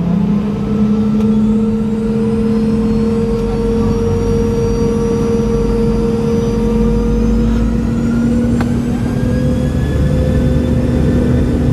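Boeing 717's rear-mounted Rolls-Royce BR715 turbofans spooling up for the takeoff roll, heard inside the cabin: a loud steady drone whose tones slowly rise in pitch over the rumble of the wheels on the runway. A single brief click sounds about three-quarters of the way through.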